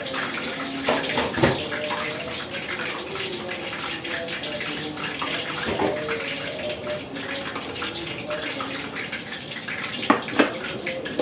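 Steady, water-like hiss of broth simmering in a wok over a gas burner, with a sharp knock about a second and a half in and two clacks near the end as a plate is set down on the counter.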